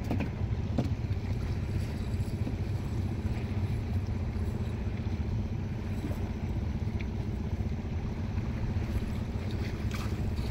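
Steady low rumble of wind buffeting the microphone over open water, with water moving around the wading fisherman and the wooden boat.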